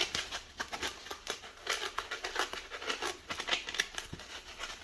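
Layered shadow foam being torn apart by hand, peeling the cut-out piece away from its layer, a string of irregular small crackles and rips.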